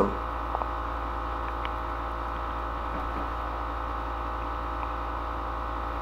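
Steady electrical hum with background hiss from the recording setup, with a couple of faint clicks in the first two seconds.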